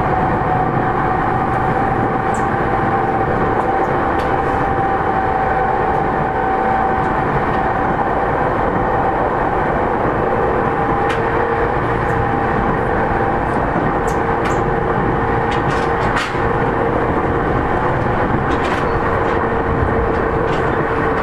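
Interior running noise of a JR East E231-3000 series electric train under way between stations: a steady rumble of wheels on rail with two steady whining tones from the drive, the lower one joining about a third of the way in, and a few light clicks.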